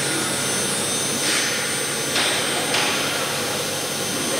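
Five-axis CNC machine running, a steady mechanical hum with a thin high whine, as its spindle head tilts and swivels on its axes. Two short rushes of hiss come near the middle.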